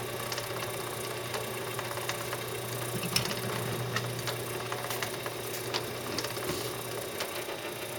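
Antique copper Easy washing machine running: a steady mechanical hum with irregular light clicks and knocks from its drive mechanism.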